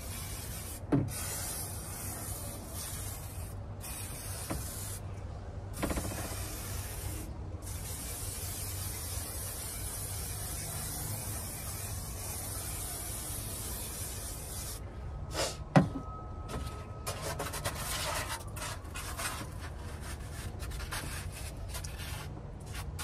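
Aerosol can of 3M Super 90 spray adhesive hissing in long sprays, stopping briefly three times, for most of the first fifteen seconds. After that come rubbing and light knocks as foam insulation board is handled and pressed into place, with one sharp knock about sixteen seconds in.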